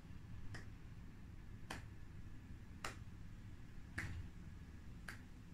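Finger snaps keeping a slow, steady count for paced breathing: five sharp snaps, one a little more than every second.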